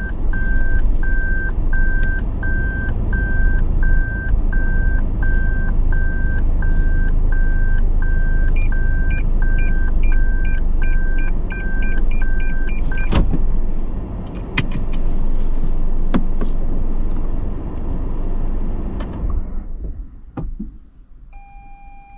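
Toyota Land Cruiser Prado in reverse, heard from inside the cabin: its reverse warning beeps evenly about twice a second over the running engine. A higher parking-sensor beep joins partway through and quickens as the car nears the obstacle. Both stop with a click about 13 seconds in; the engine then runs on, cuts off near the end, and a short chime sounds.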